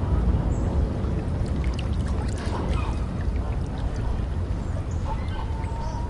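Ducks quacking in short scattered calls over a steady low rumble, with one longer call near the end.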